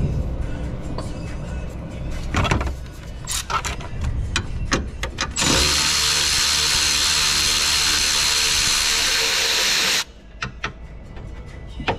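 Air ratchet running steadily for about four and a half seconds on the engine mount bolt, a loud hiss with a thin whine, cutting off suddenly. Before it come scattered clicks and knocks of the tool being handled and fitted.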